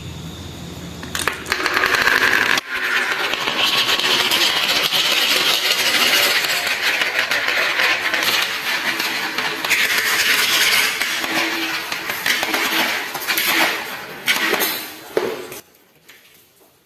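Marbles rolling and clattering down a marble run track: a continuous dense rattle of many quick clicks that builds about a second in and stops near the end.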